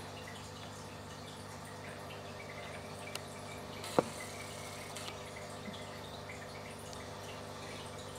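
Aquarium water trickling and dripping over a steady hum from the tank's equipment. One sharp click comes about halfway through, with a few fainter ticks around it.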